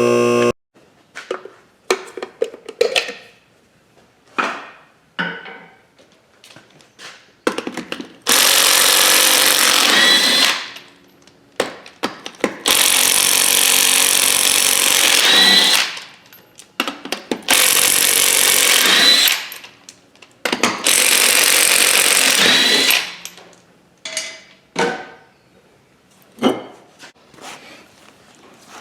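A handheld power tool runs in four bursts of a couple of seconds each, its whine rising in pitch near the end of each burst. Short clicks and knocks come between the bursts.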